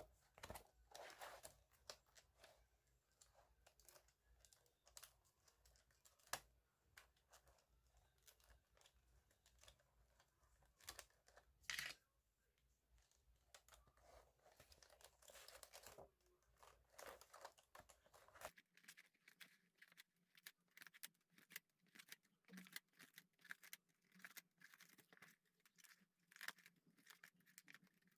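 Faint paper tearing and crinkling with many small clicks and snaps as a spiral-bound notebook is pulled apart by hand, pages and cover being torn free of the coil binding. The clicks come quicker in the last third.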